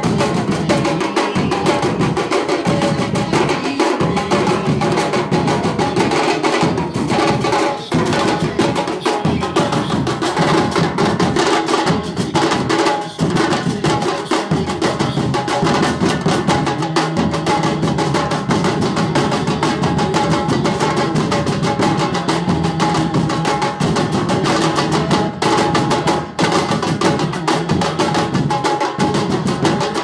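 Percussion-led music with drums and sharp wood-block-like strikes, playing without a break.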